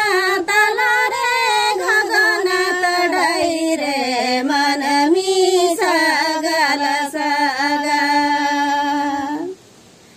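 Women singing a Santhali folk song unaccompanied by anything that stands out, one long, slowly bending melodic line with held notes; the singing stops about nine and a half seconds in.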